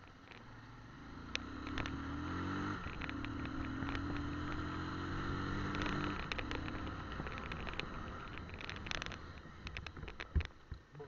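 Motorcycle engine running under way: its note rises about two seconds in, holds steady, then falls away after about six seconds. Scattered clicks and knocks come from the bike jolting over a rough, broken road surface.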